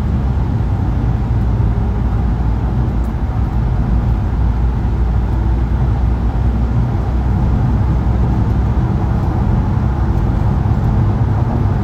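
Steady low rumble of a van's engine and road noise, heard from inside the cabin.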